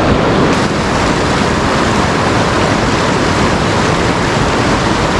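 Fast river current rushing steadily, a loud, even sound of water. The river is running high and cloudy after rain.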